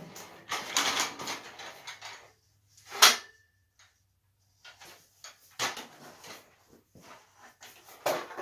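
Clatter and rattling of a folding steel-tube work stand being unfolded and set up, with one sharp metal clank about three seconds in that rings briefly.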